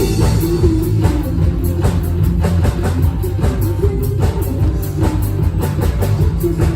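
Live rock band playing an instrumental passage: drum kit with a steady beat, electric guitar and bass.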